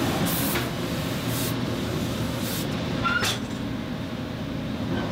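Steam iron hissing in several short bursts over the steady running of garment-workshop machinery such as sewing machines.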